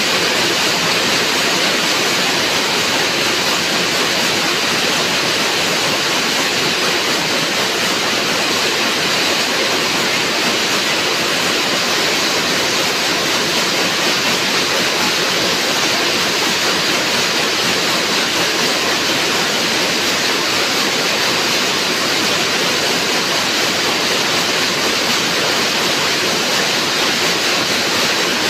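Steady, loud din of weaving looms running, an even noise with no separate beats standing out.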